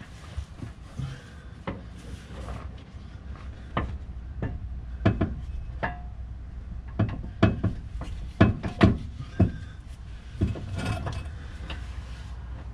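Scattered knocks and clicks of tools and metal parts being handled under a car while a power steering rack is fitted. They come irregularly, thickest and loudest in the middle, over a steady low hum.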